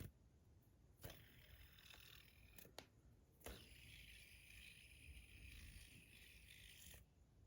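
Near silence with a few faint clicks and a soft hiss of small objects being handled.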